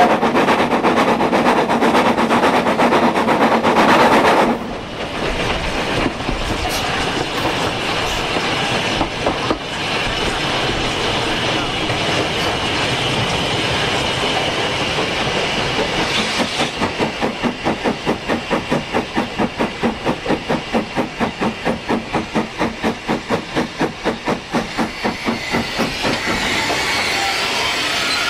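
Hunslet steam locomotive heard from its footplate while running. A loud rushing hiss cuts off sharply after about four seconds. Then comes steady running noise, and from a little past halfway the engine's exhaust beats come through clearly and evenly, about three to four a second, as it works hard.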